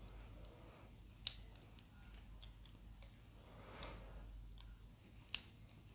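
Faint clicks and ticks of a small precision screwdriver driving tiny screws into a plastic model-car chassis crossmember, with sharper clicks about a second in, near four seconds and near the end.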